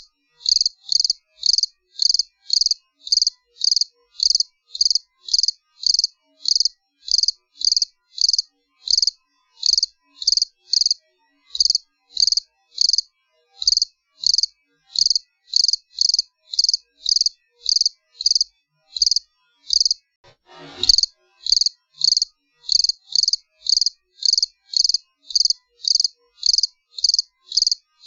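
Cricket chirping steadily: short high-pitched chirps repeating at a little under two a second. A brief rising sweep cuts in about 21 seconds in.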